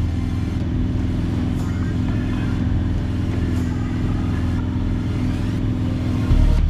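Piper Archer III's four-cylinder Lycoming engine and propeller droning steadily in flight, heard from inside the cabin. Shortly before the end the drone suddenly becomes louder and deeper.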